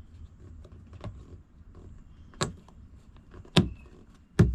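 Four sharp clicks, about a second apart, the last three loudest: the snap covers on marine 12-volt and USB power ports being flipped open and shut.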